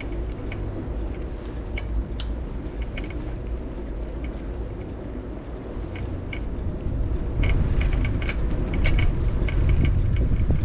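Riding a bicycle: a steady low rumble of wind and road noise with scattered light clicks and rattles from the bike, louder from about seven seconds in.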